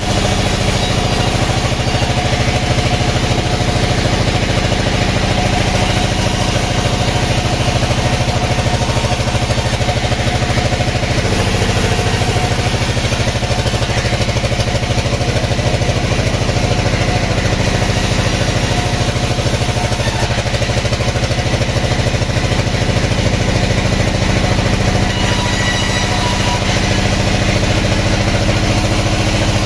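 Sawmill machinery running steadily with an engine-like drone and a fine, even pulse at the low end. The pitch shifts slightly about eleven seconds in.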